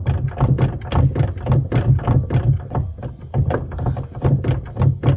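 2015 Subaru Outback power rear hatch being rocked up and down by hand, giving a quick, even run of knocks and thumps, done to bring out the knocking the owner is tracing to the liftgate's motor and gear side.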